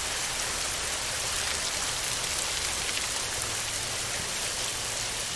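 Steady heavy rain on a metal roof: a dense, even hiss with fine scattered drop ticks.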